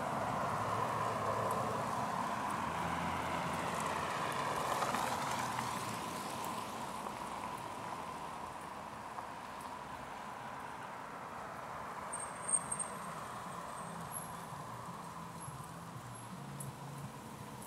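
Cars driving on a snow-packed city street in −10 °F cold: the tyre noise of a car passing swells and fades over the first six seconds, leaving a quieter traffic hiss with a steady faint tone underneath. A short sharp high click about twelve seconds in, and a few faint high ticks after it.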